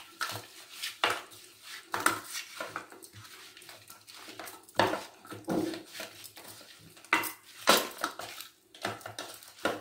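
A hand working fish and spice masala together in a stainless steel bowl, giving irregular metallic clinks and knocks as the bangles on the wrist strike the bowl's rim and each other, with soft rubbing in between.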